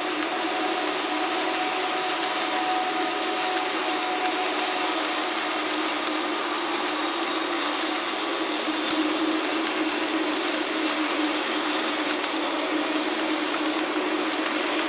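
Model freight train's cars rolling past on the layout track, a steady whirring rumble of wheels on rail that holds even throughout, with a faint thin whine in the first few seconds.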